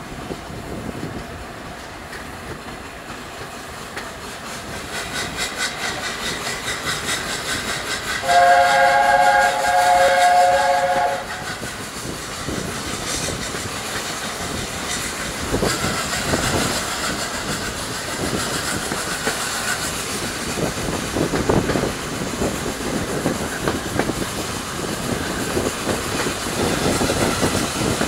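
Steam-hauled train running, heard from a carriage window: steady rail and wheel noise with clickety-clack over the joints. About eight seconds in, the LNER A4 locomotive's chime whistle sounds one chord for about three seconds.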